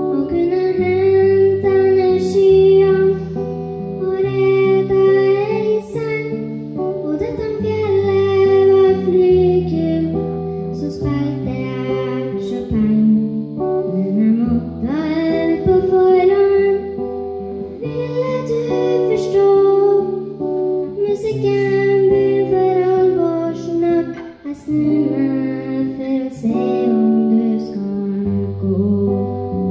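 A young girl singing into a microphone, accompanied by an acoustic guitar.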